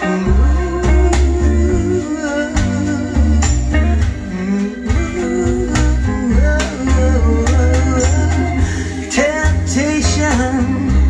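Mon Acoustic SuperMon bookshelf speakers playing a recorded song at a loud, steady level, with a strong deep bass line under a bending melody line.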